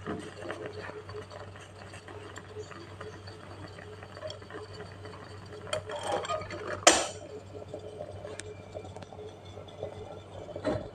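Aluminium moka pot sputtering and crackling as bubbling coffee spurts into its open upper chamber during the last stage of brewing. About seven seconds in there is a single sharp metal clack, the hinged lid being snapped shut.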